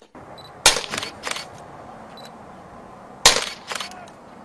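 Two suppressed gunshots about two and a half seconds apart, each a sharp crack followed by a couple of fainter clicks, over a steady background hiss.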